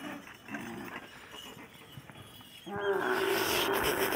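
A camel's loud, harsh, drawn-out call, lasting about a second and a half and starting about two and a half seconds in, after quieter sounds.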